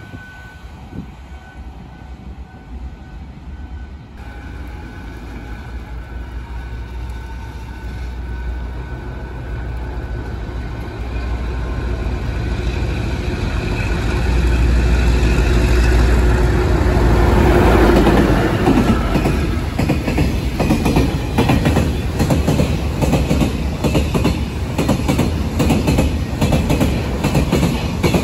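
A train approaching and passing on the tracks: a deep rumble builds to its loudest about two-thirds of the way through, then gives way to a rapid run of wheel clicks over the rail joints as the cars go by.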